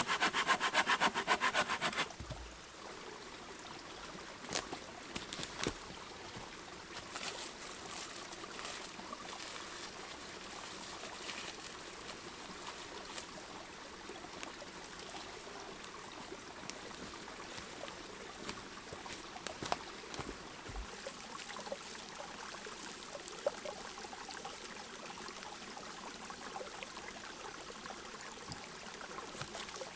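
Steady rush of a river, with scattered faint ticks over it. A loud, rhythmic rasping sound of repeated strokes fills the first two seconds and cuts off abruptly.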